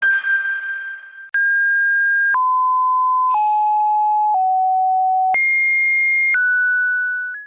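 A brief ringing chime, then a run of steady electronic beep tones, each held about a second before jumping to a new pitch, the last one fading out.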